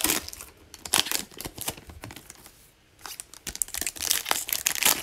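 Foil trading-card pack wrappers being torn open and crinkled by hand, in irregular flurries of crackling with a brief pause just before the middle.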